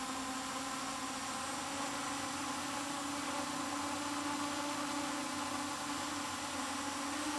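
DJI FPV drone's motors spinning at idle while the drone sits armed on the ground: a steady hum with a faint hiss.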